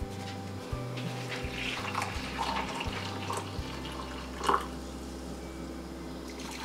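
Hot coffee pouring from a glass French press into ceramic mugs, a steady trickling stream with a brief louder splash about halfway through.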